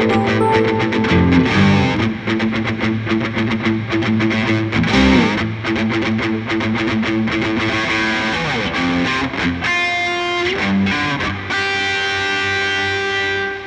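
Electric guitar with distortion, played through a Line 6 Helix multi-effects processor: fast picked notes, then a held chord ringing for about two seconds that drops away at the very end.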